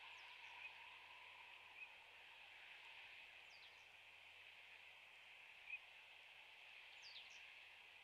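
Faint outdoor ambience: a steady low hiss, with a small bird's short, high, down-slurred calls three times, near the start, about three and a half seconds in and about seven seconds in. A few soft clicks sound too, the sharpest just before six seconds in.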